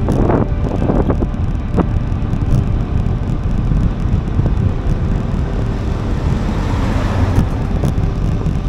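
Steady wind rumble on a moving action camera's microphone, with a swell of louder rushing noise about seven seconds in.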